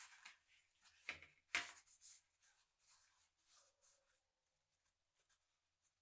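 Paper towel rubbing over a metal meat grinder auger as it is wiped by hand: a run of short, scratchy papery swishes, the loudest about one and a half seconds in. The rubbing fades out after about four seconds.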